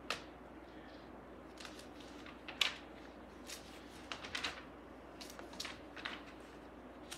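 Pages of a Bible being turned by hand: a string of short, soft paper rustles and flicks at irregular intervals, the loudest about two and a half seconds in.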